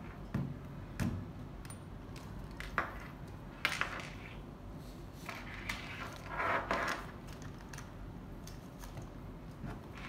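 Handling noise from a camera shoulder strap and the camera hanging on it. Several sharp clicks and knocks from the strap's hardware and the camera come in the first four seconds. The strap and its padded shoulder pad then rustle for a couple of seconds.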